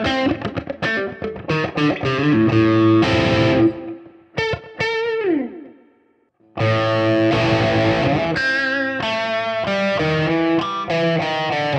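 Overdriven electric guitar playing a rock phrase through a Kemper Super Reverb profile with Tube Screamer-style drive, the Centerpunch humbucker in full, unsplit mode on the middle pickup setting. About five seconds in, notes slide down in pitch and the sound dies away briefly. The playing then picks up again, switched over to the bridge pickup.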